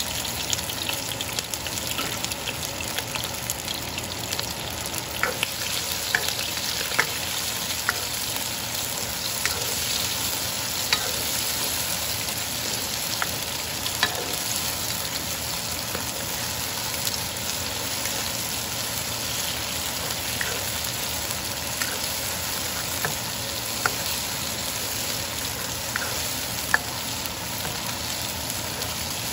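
Chopped onions sizzling steadily in hot oil in a nonstick wok, stirred with a spatula that gives occasional sharp taps and scrapes against the pan.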